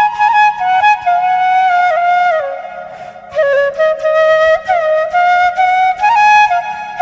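Flute music: a slow melody of held notes that slide and bend between pitches, with a short pause and quieter stretch about three seconds in.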